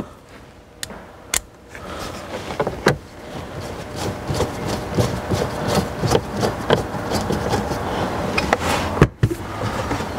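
Hand screwdriver turning screws back into a car's plastic under-dash panel, with the panel and screwdriver scraping and clicking. A few separate clicks come first. About two seconds in, a long run of rapid scraping and clicking starts, with a sharp knock near the end.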